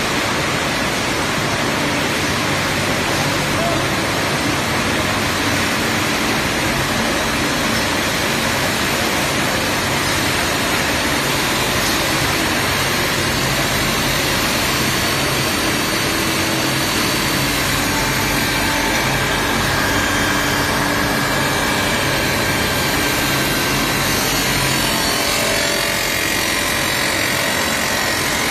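Automatic stainless-steel tube mill line running: a steady, loud machine din from the motors and roll-forming stands, with a few held whining tones over it.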